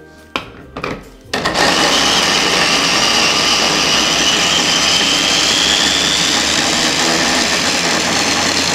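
Electric mini food chopper running, chopping garlic, shallots and soaked dried chillies. A few knocks first, then the motor starts about a second and a half in and runs steadily, its whine rising slightly in pitch.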